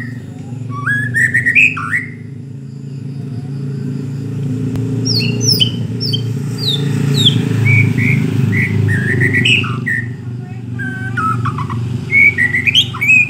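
Caged long-tailed white-rumped shama (murai batu) singing: several bursts of varied whistled phrases with quick high notes, over a steady low rumble.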